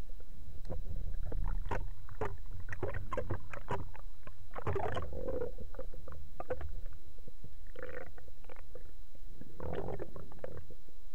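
Underwater sound picked up by a speargun-mounted camera: a steady low rumble of moving water, with scattered sharp clicks in the first few seconds and three bubbling gushes, about halfway in, near eight seconds and near the end.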